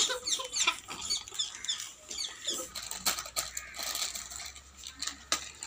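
Foil chip packets crinkling and rustling in the hands, with quick high squeaky chirps in the first second or so.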